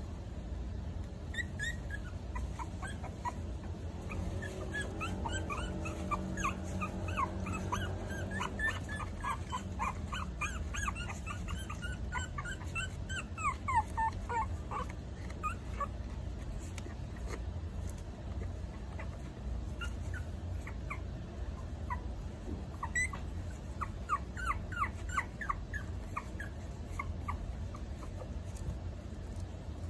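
Four-week-old Maltese puppies crying in many short, high-pitched whimpers, thickest in the first half and again about three quarters of the way through, over a steady low hum.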